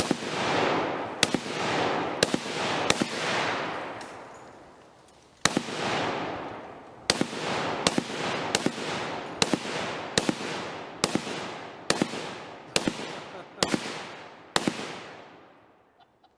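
M1919 Browning in .308 fired as single shots, about fifteen in all at roughly one a second, with a pause of about two seconds after the fourth. Each shot is followed by a long echoing tail that fades away.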